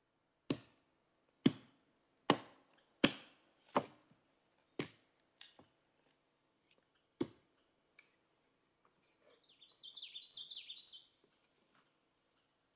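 Wood being chopped with sharp blows, about nine strikes roughly a second apart, the first six the loudest and the last few weaker and more spaced out. Near the end a bird sings one short, high, fluttering phrase.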